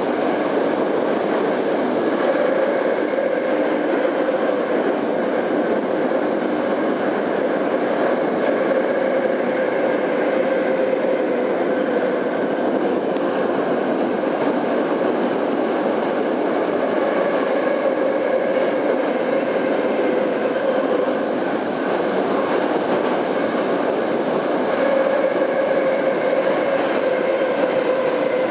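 81-717.5M metro train running at speed through a tunnel, heard from inside the car: steady rumble of wheels and running gear with a steady droning tone in it.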